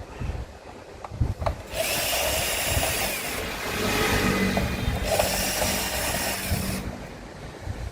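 A small handheld power tool runs steadily for about five seconds with a low motor hum, then stops abruptly; a few sharp clicks come just before it starts.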